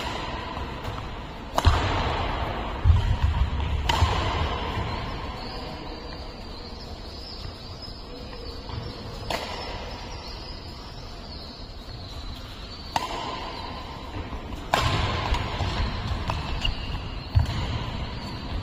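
Badminton rackets striking a shuttlecock in a rally: about six sharp smacks spaced a few seconds apart, echoing in a large hall, with players' shoes thudding on the court between them.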